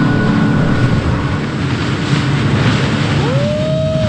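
Center-console boat's outboard engines running steadily at cruising speed, with wind and water rushing past the hull. Near the end a short clear tone rises and holds briefly.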